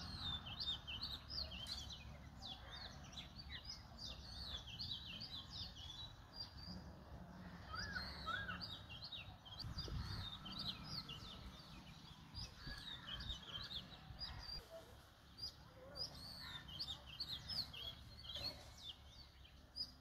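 Small birds chirping busily, many short high calls in quick overlapping runs, with a low rumble underneath.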